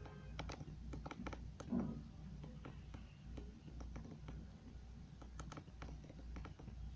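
Irregular light clicks and taps, with one louder knock about two seconds in.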